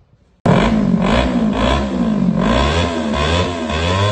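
Motorcycle with a modified 'cement pipe' aftermarket exhaust being revved over and over, its pitch rising and falling about twice a second. It is loud and starts abruptly about half a second in.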